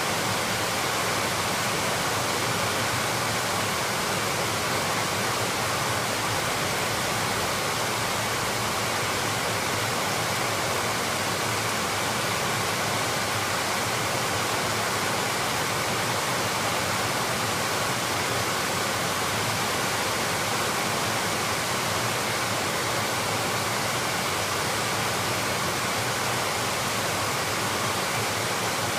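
Heavy monsoon rain pouring down steadily: a dense, even hiss with no let-up.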